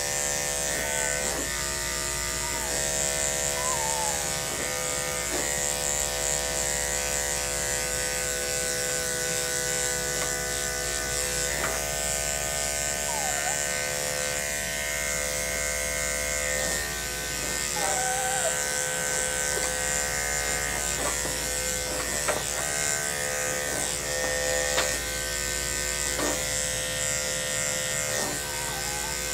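Andis 5-speed corded dog clipper running with a steady electric buzz as its blade is worked through a Maltese's leg fur. A few faint short squeaks and light clicks sound over the hum.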